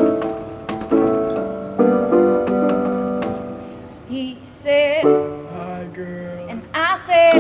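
Live acoustic song: piano chords struck about once a second, then from about four seconds in a woman's voice sings short phrases with a wavering pitch over a low held piano note.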